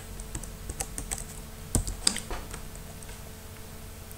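A few irregular light clicks of computer keys, the loudest about two seconds in, over a faint steady hum.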